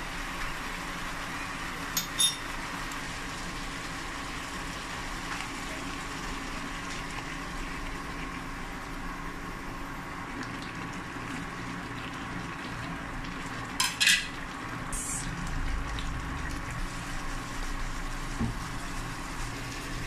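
Pork frying with a steady sizzle in a nonstick pan on an induction cooktop, over a steady hum. A metal spoon knocks and scrapes against the pan twice, a couple of seconds in and again about two-thirds of the way through.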